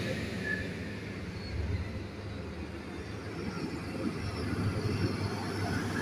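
Diesel tractor engines running along the road: one passing tractor fading away, then the next approaching and growing louder toward the end.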